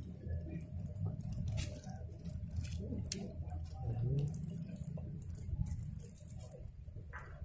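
Close-up handling noise as fingers work bait onto a fishing rig next to the microphone: scattered soft clicks and rubbing over a constant low rumble.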